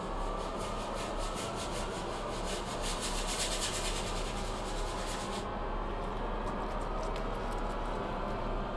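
Hand-scrubbing of wooden floorboards in quick, even strokes, about three a second, which stop about five seconds in. A low steady drone runs underneath.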